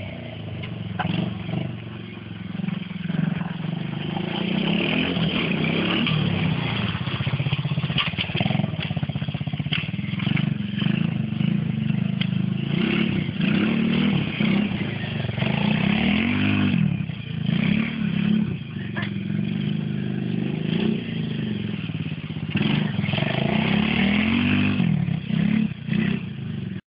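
Mini ATV quad's 125cc four-stroke engine running as it is ridden, its revs rising and falling repeatedly.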